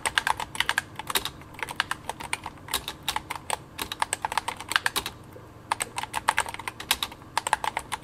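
Corsair K100 optical-mechanical keyboard with OPX switches and HyperX Pudding PBT keycaps being typed on: a fast, irregular run of key clicks, with a pause of about a second just past the middle.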